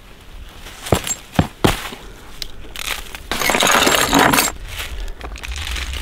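Three sharp metallic knocks about a second in as a dog-proof raccoon trap's stake is worked into the ground, then a little over a second of dense rattling and crunching, the loudest part.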